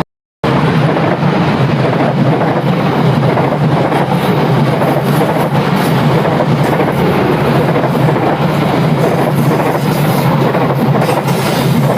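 Locomotive-hauled passenger train rolling past on the rails: a steady, loud rumble and rattle of wheels and carriages that does not let up.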